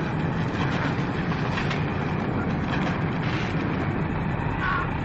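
Steady, even roar of an airliner in flight heard inside the cabin, a continuous rushing drone with no breaks.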